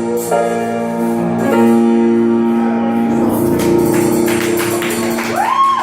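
Live band holding the song's final chord so it rings out. Near the end the crowd starts to cheer.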